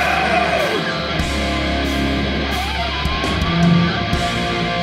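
Hardcore band playing live, with heavy distorted electric guitars and bass in a breakdown between shouted chants.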